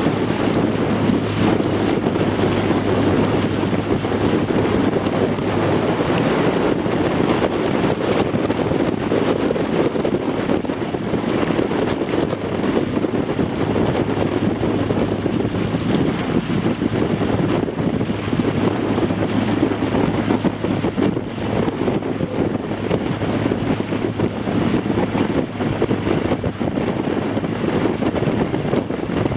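Motorboat engine running steadily, with wind buffeting the microphone. The low engine drone weakens after about ten seconds.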